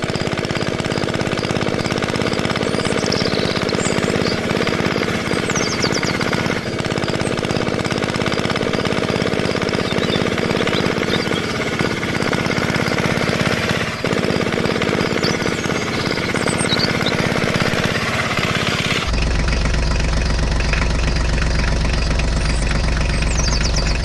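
Small engine running with a rapid, steady rattle. About nineteen seconds in its sound changes and a deep hum comes in.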